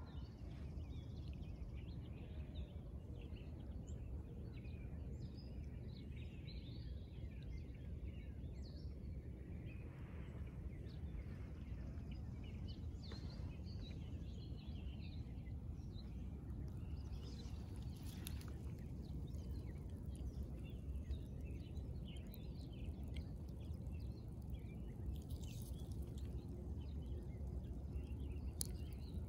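Outdoor lakeside ambience: many small birds chirping and calling here and there over a steady low rumble, with a few brief swishing noises.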